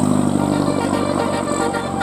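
A bus's 12-note telolet basuri musical horn playing a tune, its notes steady and changing one to the next, over a low steady hum that fades.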